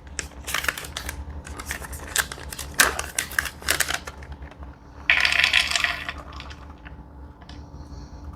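Crinkling and crackling of a ration's trail-mix snack pouch being handled and opened, with a denser second-long rustle about five seconds in.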